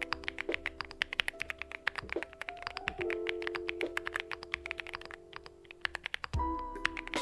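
Rapid typing on a Cidoo V68 aluminium mechanical keyboard: a fast, dense run of keystroke clacks, several a second, that thins out briefly near the end. Background music with sustained notes plays underneath.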